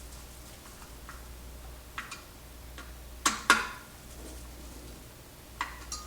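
Small clicks and knocks of tools and metal parts being handled on a workbench, with two sharp knocks close together a little after three seconds in, over a low steady hum.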